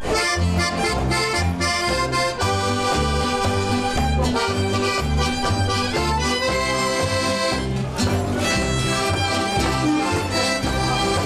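Small folk band playing a lively tune: accordion leading over a plucked double bass on a steady beat, with acoustic guitar and violin.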